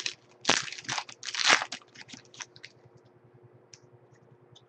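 Foil trading-card pack wrapper being torn open and crinkled by hand, in several crackling bursts over the first two and a half seconds, loudest about half a second and a second and a half in, then only a few faint ticks.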